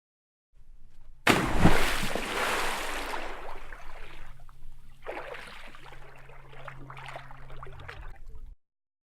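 Water sound effect: a sudden loud splash about a second in that fades over a couple of seconds, then smaller irregular splashes and sloshing, cut off abruptly near the end.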